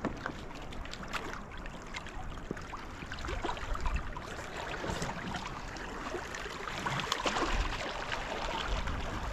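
Sea water sloshing and splashing against the rocks of a breakwater, with scattered small clicks and knocks.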